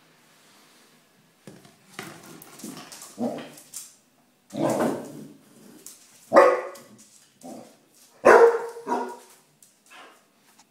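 Basset hound barking at an aerosol deodorant can: a run of loud, irregular barks, the loudest about six and eight seconds in.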